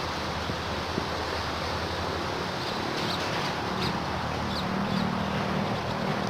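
A handful of short, high animal chirps, about five of them, over a steady outdoor noise of wind and water with a low hum underneath.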